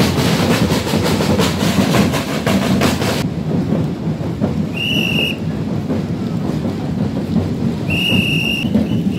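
Parade drum band of snare and bass drums playing a fast, dense beat. After a cut about three seconds in the drumming goes on, duller, and a whistle is blown twice in long blasts, about halfway through and near the end.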